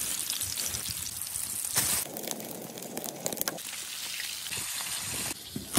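Flour-dredged pike steaks sizzling in hot oil in a wide pan: a steady hiss like rain. It surges louder briefly about two seconds in, and a few sharp clicks follow a second or so later.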